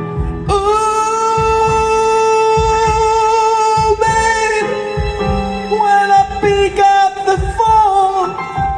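Live band music: a singer holds one long wavering note starting about half a second in, then moves through a short falling melodic phrase, over piano and low accompaniment.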